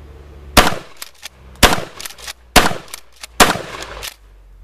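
IAC Hawk 981R 12-gauge pump-action shotgun fired four times in quick succession, about a second apart. Each blast is followed by the clack of the slide being racked back and forth to chamber the next buckshot shell. The action cycles each round without a problem.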